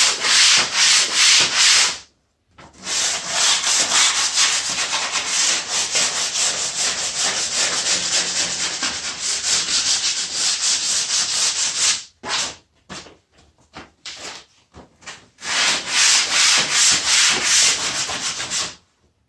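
Sandpaper rubbed in rapid strokes along the edges of a plywood workbench top. It stops briefly about two seconds in, pauses for a few seconds after about twelve seconds with only a few light knocks, then starts again and stops just before the end.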